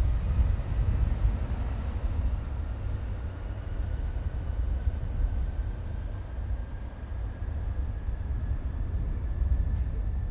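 Twin-engine jet airliner's engines rumbling as it moves along the runway, with a faint whine that climbs slowly in pitch.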